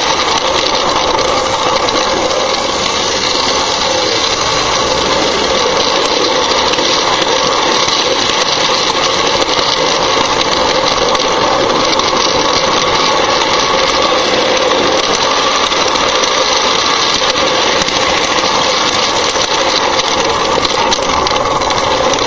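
Lionel 243 O-scale toy train running on its track, heard from a car riding in the train: a steady loud rattle of wheels and motor.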